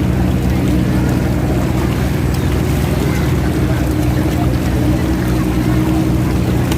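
A river tugboat's diesel engine running steadily under load while towing heavy barges, a low, even drone.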